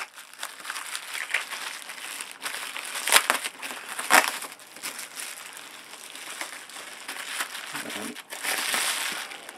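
Bubble wrap crinkling and rustling as it is handled and unrolled from around coin tubes, with a couple of sharper clicks about three and four seconds in.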